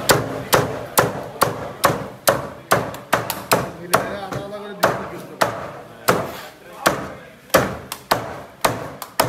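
Meat cleaver chopping through a fish on a cutting board, steady sharp chops about two a second as the fish is cut into chunks, with a brief pause near the middle.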